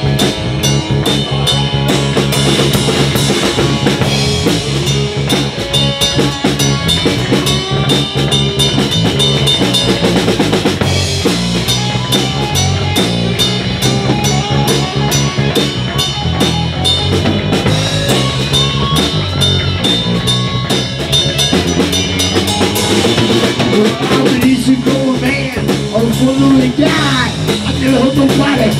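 Live rock band playing an instrumental break with no singing: drum kit, electric bass and electric guitar, the drums hitting steadily under moving bass notes.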